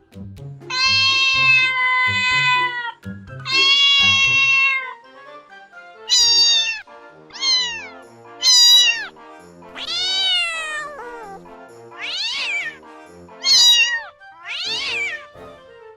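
Kittens meowing repeatedly over soft background music: two long, drawn-out meows, then a series of shorter meows that fall in pitch.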